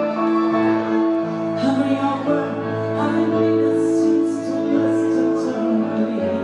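Pop song playing, with a voice singing over long held chords and a stepping bass line.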